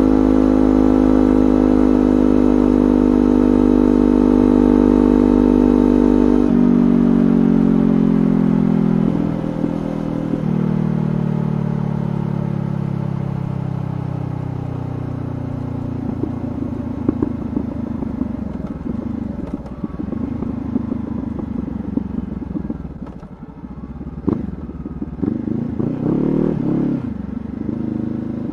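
Honda CBR500R parallel-twin engine through a LeoVince GP Corsa exhaust with no dB killer, holding a steady note while cruising, then slowing on the overrun with three downshifts, each a jump in pitch followed by a falling note. As the bike slows further, the engine note drops low and the toolkit under the rear seat rattles in scattered clicks.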